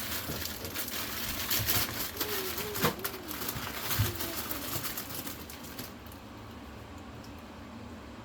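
Water running from a kitchen tap, with a couple of sharp clinks, until the tap shuts off about six seconds in.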